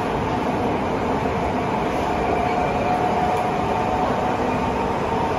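Tokyo Metro 15000 series subway train running at speed through a tunnel, heard from inside the passenger car: a steady rumble of wheels on rail with a faint motor whine over it.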